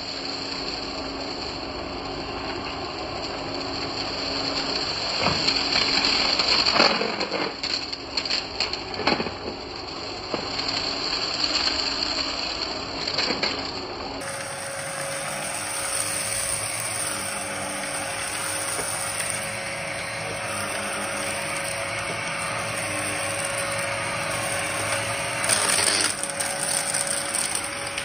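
Upright bagless vacuum cleaner running over carpet, with short bursts of crunching and rattling as bits of debris are sucked up into the clear canister. The motor's tone changes suddenly about halfway through.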